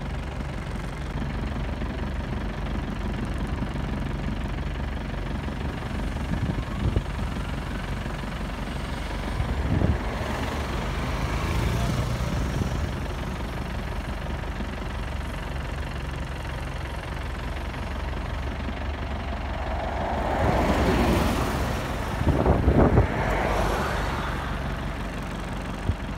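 Vehicle engine idling with a steady low drone, with other vehicles passing by, once about ten seconds in and louder near the end.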